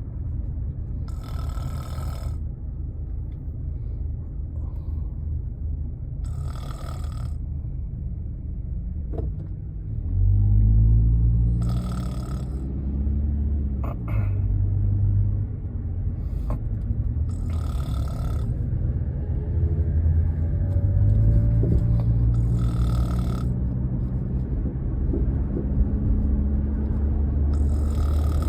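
A woman snoring in her sleep, about one snore every five seconds, over the low rumble of a car being driven. From about ten seconds in, the car's engine note rises and falls.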